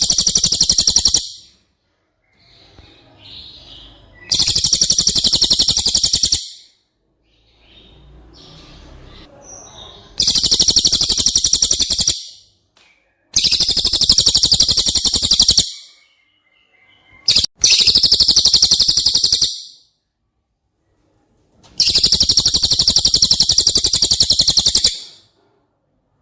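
Cililin (pygmy bushtit) singing very high, rapid buzzing trills. Six loud trills of about two seconds each are separated by short pauses, with faint soft chirps in the gaps.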